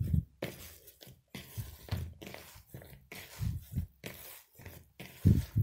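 Risen yeast dough being knocked back and kneaded by hand in a bowl after proofing: irregular soft thuds and squishing of the dough against the bowl.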